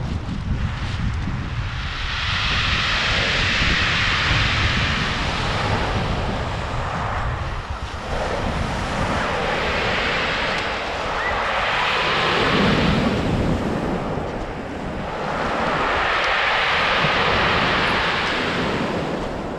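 Waves breaking and washing over a pebble beach: four swells of hiss, each rising and falling away over a few seconds. Wind buffets the microphone underneath with a steady low rumble.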